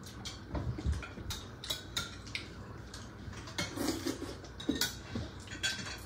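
Metal cutlery clinking and scraping against plates and bowls at a meal: scattered short clicks and light knocks at an irregular pace.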